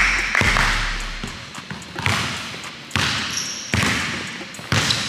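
Basketball being dribbled on a hardwood gym floor: about five uneven bounces, each ringing out in the hall's echo. There is a short high squeak about three seconds in.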